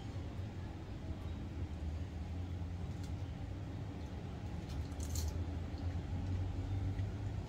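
Faint sounds of eating by hand, fried anchovies with rice and sambal: a few soft clicks and a short crisp crunch about five seconds in, over a steady low background hum.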